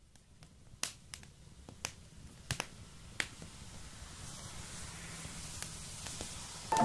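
Scattered sharp clicks and crackles, about a dozen, over a soft hiss that slowly grows louder: a produced crackle-and-noise intro to the track. Piano notes come in right at the very end.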